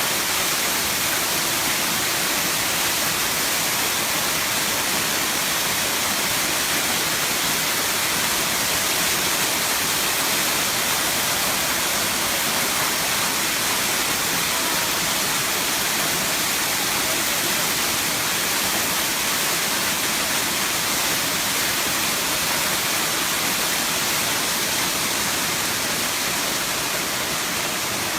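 Seventh tier of Erawan Waterfall: water pouring and splashing over the falls, a steady hiss without a break.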